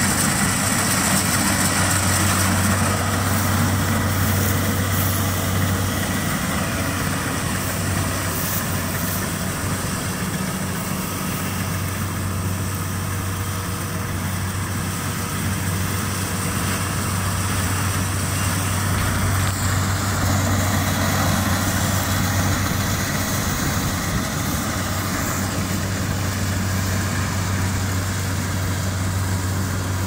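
Kubota rice combine harvester running steadily as it cuts and threshes rice: a constant low diesel engine hum with the whir of the threshing machinery over it.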